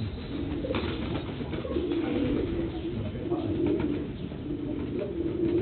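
Domestic pigeons cooing over and over, low repeated coos about once a second.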